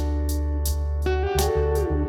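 Background music: a guitar-led track over a steady beat, with a sliding note about halfway through.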